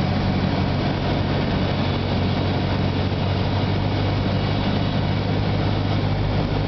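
Cessna 172's piston engine and propeller running steadily on final approach, heard inside the cabin: a constant low drone of several tones over a broad hiss.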